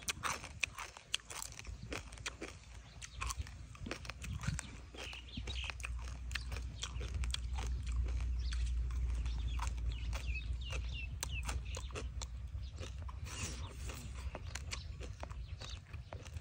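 Crunchy chewing of shredded papaya salad, a steady run of short wet clicks and crunches. A low rumble swells up through the middle.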